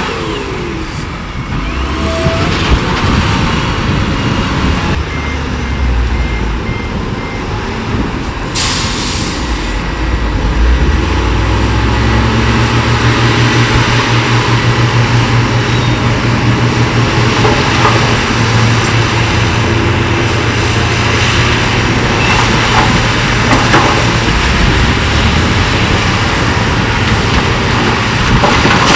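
Heavy diesel earthmoving machinery working: a bulldozer and dump trucks with engines running under load, one engine holding a steady note through the middle. A short burst of air hiss, like a truck's air brake, about nine seconds in.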